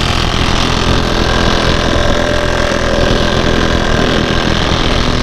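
Cordless impact wrench hammering continuously at full power on a wheel's lug nut, a loud fast rattle, trying to break loose lug nuts the mechanic believes are seized.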